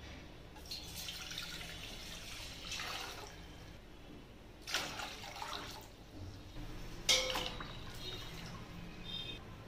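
Water poured into an empty stainless steel pot in three pours, splashing against the metal; the loudest splash starts about seven seconds in.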